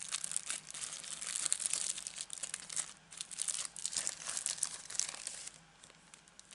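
Thin plastic packaging crinkling and rustling as a sheet of clear stamps is handled and pulled from its bag. The rustling dies down about five and a half seconds in.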